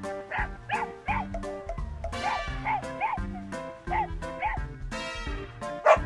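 Puppies giving a run of short, high yips, about eight of them, over background music with a steady beat. There is one louder, sharper burst near the end.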